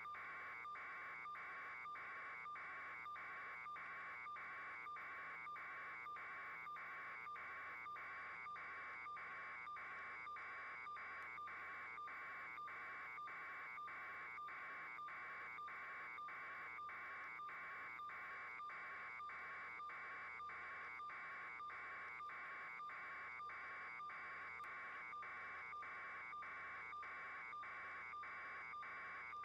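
A steady pulsing electronic buzz, about two pulses a second, unchanging throughout.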